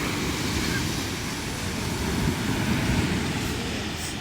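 Uneven low rumble of beach wind and surf on the microphone, with a steady hiss above it.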